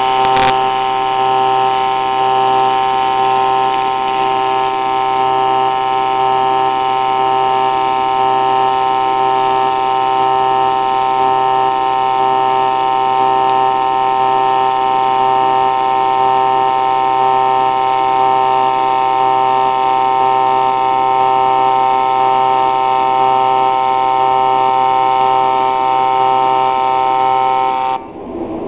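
TIG welding arc from a Migatronic PI 350 power source with cold wire feed, burning with a loud, steady buzz made of several held tones. The buzz cuts off abruptly near the end as the arc is broken.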